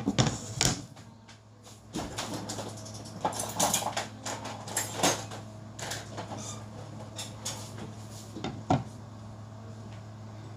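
Scattered knocks and clatter of kitchen things being handled, with a steady low hum underneath.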